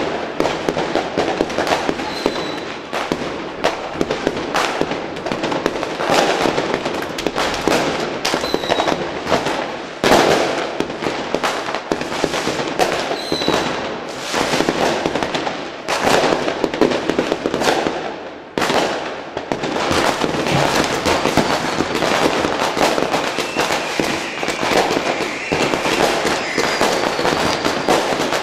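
Consumer fireworks and firecrackers going off all around in a dense, continuous barrage of bangs and crackling. There is a brief lull about two-thirds of the way through, and a few short high whistles cut through the bangs.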